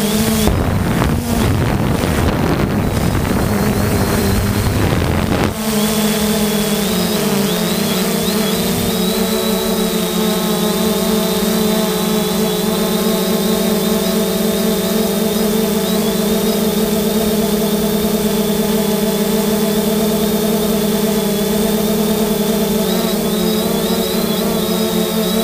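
A 3DR Solo quadcopter's four electric motors and propellers whining steadily, heard through the camera on the drone, with a few slight dips in pitch. A loud rushing noise covers the whine from about half a second to five seconds in.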